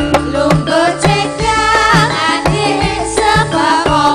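Campursari band music: a hand-drum beat over bass at about two beats a second, with sustained melodic instruments and a wavering vocal line.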